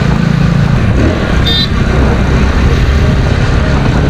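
Motorhead X-Torque 250's air-cooled 250 cc single-cylinder engine running steadily while the bike is ridden, with a low rumble. A short high beep sounds about a second and a half in.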